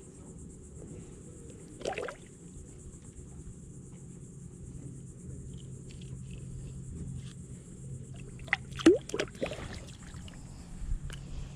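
Small splashes and knocks as a caught fish is held in shallow water on a lip grip, the loudest cluster about nine seconds in, with a shorter one about two seconds in. Insects buzz in a steady high hum underneath.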